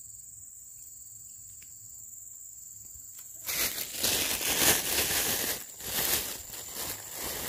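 A thin plastic bag crinkling and rustling as it is handled, starting about halfway through. Before that there is only a steady high insect drone, like a cricket.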